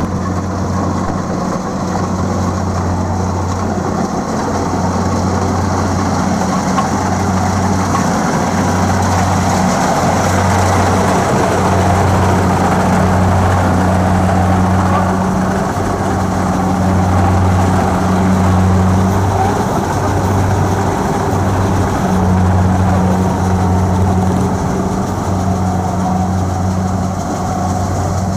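Kubota DC-70 Plus rice combine harvester running steadily at close range while harvesting, its diesel engine and threshing drum giving a continuous deep hum.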